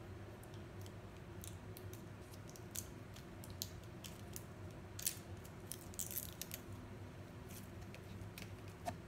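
Faint scattered clicks and crinkles of a small plastic lip-gloss package being worked open by hand, busiest about five to six and a half seconds in.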